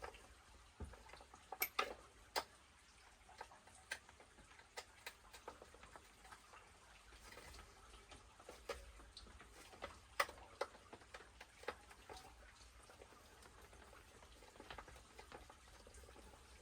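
Scattered light clicks and taps of small parts and hand tools being handled at a workbench, the loudest a few near the start and a couple around the middle, over a faint low hum.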